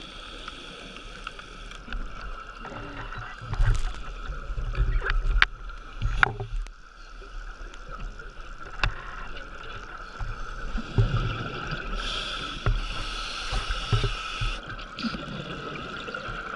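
Scuba diver breathing underwater through a regulator: irregular bursts of exhaled bubbles rumbling past the camera, with a longer bubble rush about twelve seconds in, over a steady faint high tone.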